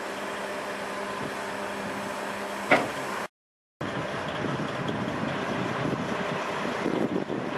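Diesel engine idling steadily, with a single sharp bang almost three seconds in. The sound then cuts out for about half a second and comes back rougher, with wind buffeting the microphone over the engine.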